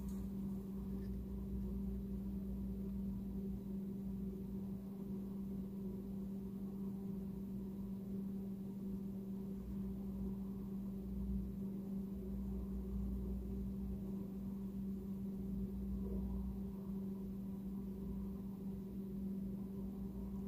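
A steady low hum with one constant tone and a fainter one above it, unchanging throughout; the paint pouring makes no distinct sound.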